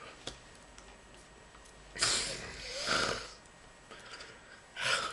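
A man's breathy vocal sounds, not words: a long hissing breath about two seconds in that turns voiced near its end, and a shorter one near the end.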